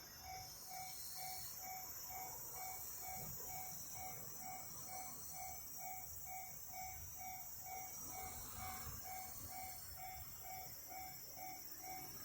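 Japanese level crossing warning bell ringing steadily, about two dings a second: the crossing is active for an approaching train.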